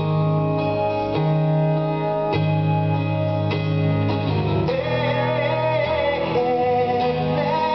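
Solo steel-string acoustic guitar strummed in slow, ringing chords, with a fresh strum about every second. A sung voice comes in about five seconds in.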